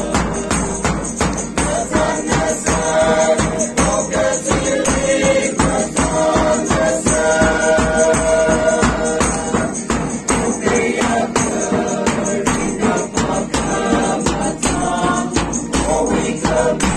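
Men and women singing a hymn together, accompanied by strummed acoustic guitar, a jingling tambourine and a bass drum keeping a steady beat.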